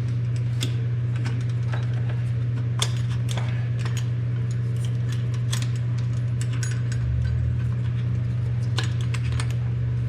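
Scattered light clicks and taps of the smoke machine's cap, hoses and fittings being handled, over a steady low hum.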